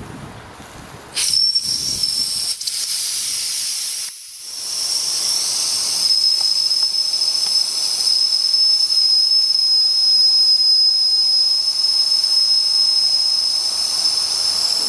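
Steam whistle on a Wilesco D11 model steam engine's boiler blowing: a steady, high-pitched whistle over a hiss of escaping steam. It opens about a second in, falters briefly about four seconds in, then is held open, venting the last of the steam from the boiler.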